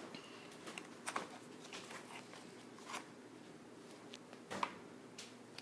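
Faint, scattered clicks and rustles of plastic toy guns being handled and shifted about.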